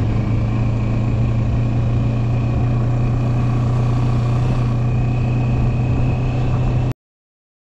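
Motorcycle engine running steadily under way, a strong low hum with a faint high whine over it; it cuts off abruptly near the end.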